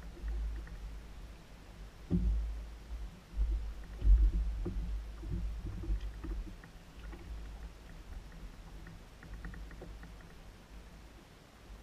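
Low rumbling knocks and thuds on a small fishing boat's hull and deck as it drifts, the loudest about two and four seconds in, with faint light clicking near the start and again near the end.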